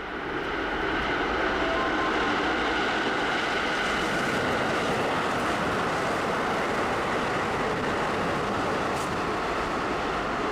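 Hokuso Line electric commuter train running past at speed: a loud, steady rushing noise of wheels and running gear that holds level throughout.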